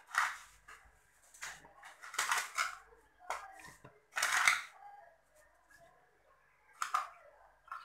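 A metal tablespoon scooping sugar and knocking and scraping against a stainless-steel mixing bowl: about four short scrapes a second or two apart, one spoonful after another.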